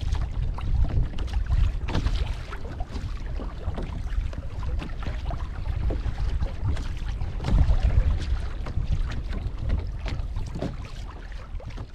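Wind buffeting the microphone, with water splashing and slapping against the hull of a Hobie Passport 12 kayak under way on choppy sea. The sound fades out near the end.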